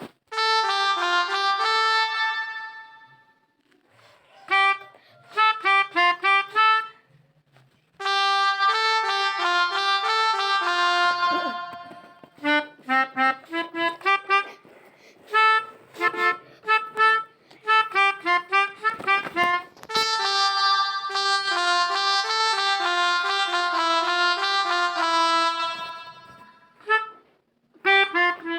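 Pianica (melodica) sound from a smartphone app, played as a tune of reedy notes: runs of quick short notes alternate with longer held notes, with a couple of brief pauses. It is an attempt at the 'telolet' bus-horn melody.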